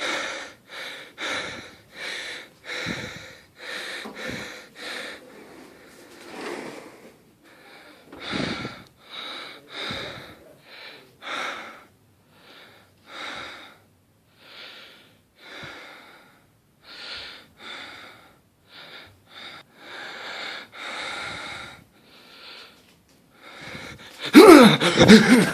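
Heavy, wheezing human breathing: a long run of rasping breaths, about two a second at first and slower from around midway. Near the end a sudden loud vocal outburst, much louder than the breathing.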